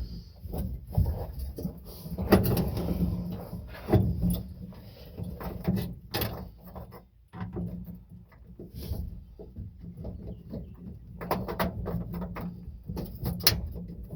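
Hands working metal parts under a truck dash to fit an ignition switch: irregular clicks, knocks, rattles and scrapes, with a denser run of clicks about eleven seconds in.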